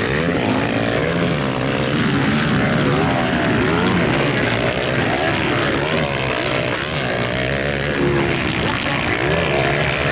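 Several 250cc motocross bikes racing together, their engines revving up and falling back over and over as the riders work the throttle and shift through a turn.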